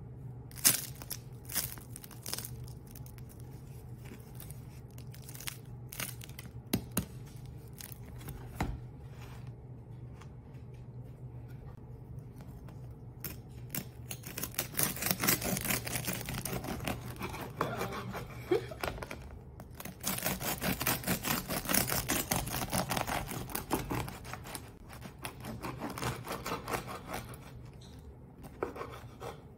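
Crusty sourdough loaf crackling as it is handled, with a few sharp cracks, then a knife sawing through the crunchy crust in quick rasping strokes, in three stretches through the second half.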